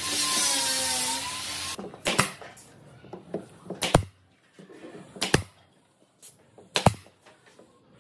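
A handheld power tool runs with a whine that drops slightly, for about two seconds, then stops. Four sharp knocks follow, about one every one and a half seconds.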